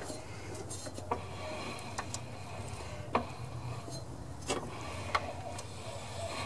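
Lawn mower blade and crankshaft being turned slowly by hand, with light rubbing and a handful of scattered clicks from the blade and engine.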